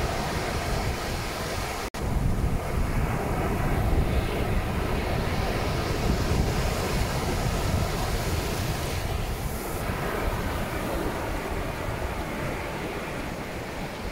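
Surf breaking and washing up onto a sandy beach, with wind rumbling on the microphone. The sound drops out for an instant about two seconds in.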